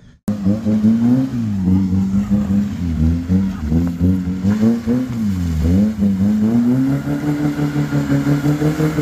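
Modified Maruti Gypsy's engine revving under load as it pulls through deep muddy ruts, the revs rising and falling repeatedly with the throttle, then holding steadier and a little higher near the end.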